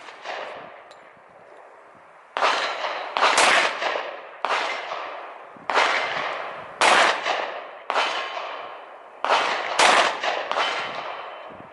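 Glock 20 10mm pistol firing a string of about nine shots at an uneven pace of roughly one a second, each shot trailing a long echo. These are the first shots through the new gun.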